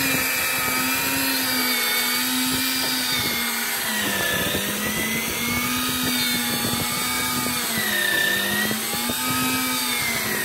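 Electric deep-drop fishing reel winding line in under load: a steady motor whine whose pitch dips and rises every few seconds as the strain on the bent rod changes.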